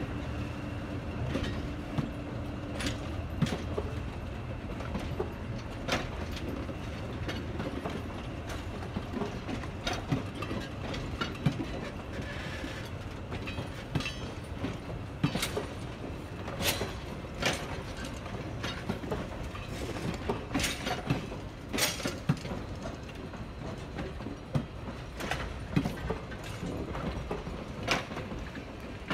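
Passenger train cars rolling past: a steady low rumble of the wheels on the track with irregular sharp clicks and clacks.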